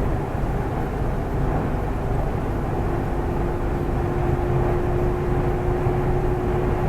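Volvo semi-truck driving on the highway, heard from inside the cab: a steady engine and road rumble. A thin steady whine joins about two and a half seconds in.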